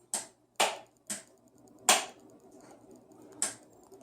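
A newly installed simple on-off wall light switch clicked five times as it is tested. There are three sharp clicks about half a second apart, then two more spaced a second or more apart.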